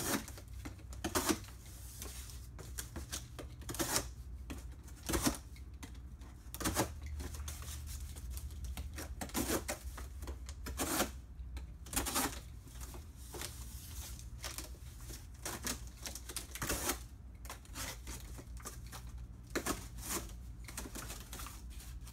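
Utility knife slicing slits into a sheet of corrugated cardboard: a series of short, sharp rasping cuts at irregular intervals, roughly one every second or so.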